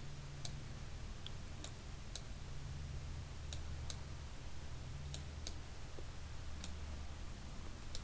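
Computer mouse buttons clicking now and then, about a dozen short sharp clicks at irregular intervals, over a steady low hum.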